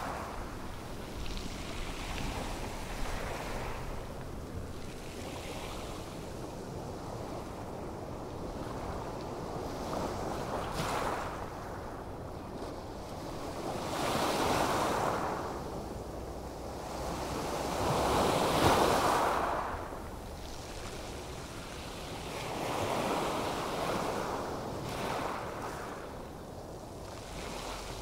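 Ocean surf: a steady rush of waves that swells and fades every few seconds, the loudest swell about two-thirds of the way through.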